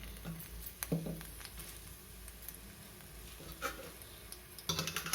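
Garlic cloves frying in a little mustard oil in a small bowl on a gas burner: faint crackling and spitting, with two sharper clicks about a second in and near the end.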